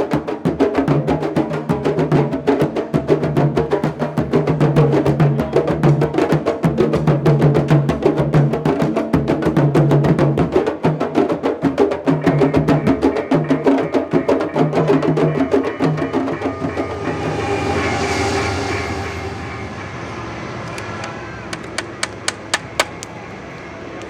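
Candombe drums played in a fast, steady rhythm of dense strokes, a low-pitched drum tone sounding again and again among them, fading out about two-thirds of the way through. Then comes a brief swell of rushing noise, and a few sharp clicks near the end.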